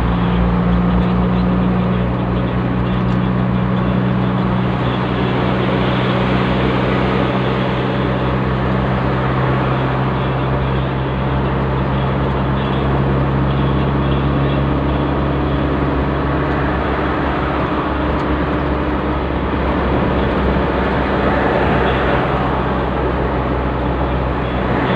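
Steady engine drone and tyre and road noise inside the cabin of a diesel vehicle cruising at highway speed. The engine's low hum shifts in pitch a couple of times.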